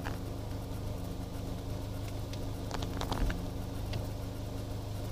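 A steady low engine hum with a few light clicks about three seconds in.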